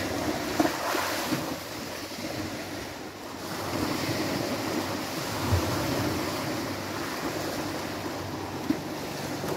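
Small waves washing onto a sandy beach, with wind on the microphone; the surf swells about four seconds in. A few brief knocks stand out over it.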